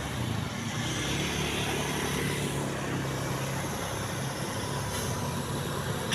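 Road traffic: a motor vehicle's engine running steadily, a low drone under an even hiss.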